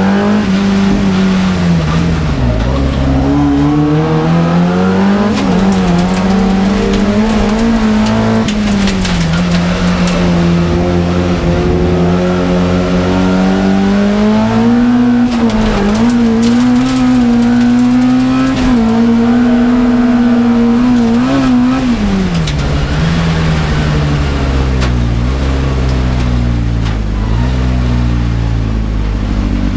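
Race car's engine heard from inside its stripped-out cabin, running hard on a gravel track. Its pitch rises and falls with throttle and gear changes, dropping sharply about two seconds in and again near twenty-two seconds, with occasional knocks from the body.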